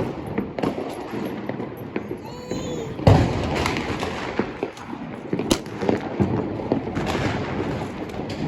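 Repeated sharp bangs and pops of small explosive charges going off at irregular intervals, the loudest a little after three seconds in, over a continuous crackling background.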